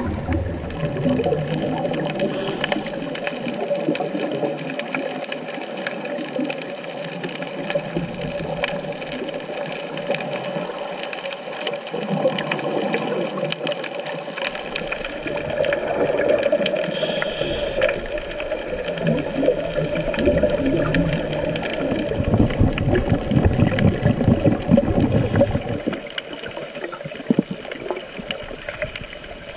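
Underwater sound on a scuba dive, heard through the camera: a steady muffled rush of water with a fine crackle. A louder low rumbling swells in from about halfway and fades a few seconds before the end.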